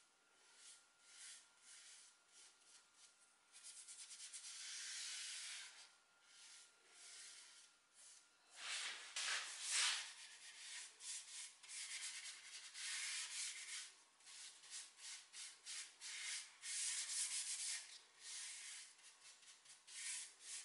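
Paintbrush bristles swishing over a wooden chair frame as water-based stain is brushed on, in a run of short, irregular strokes. Faint.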